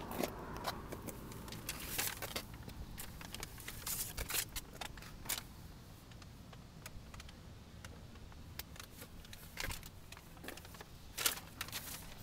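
Irregular clicks and rustles of handling noise from a hand-held camera being moved about, with the loudest ticks about two seconds in, around four seconds and near the end.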